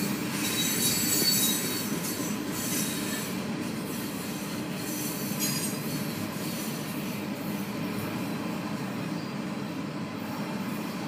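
Freight train of autorack cars rolling past, heard from inside a car: a steady rumble of wheels on rail, with high wheel squeals over the first few seconds and again about five seconds in.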